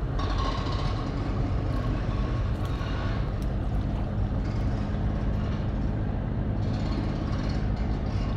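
Engine running steadily, a low drone that holds one pitch throughout.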